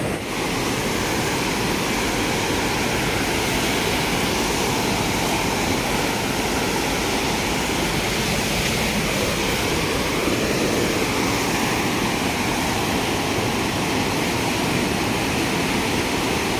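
Fast, silt-laden mountain river rushing over boulders: a steady, unbroken rush of turbulent water.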